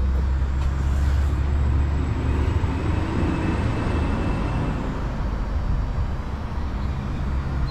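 A large vehicle engine running at a steady idle, a low steady drone under general shop noise.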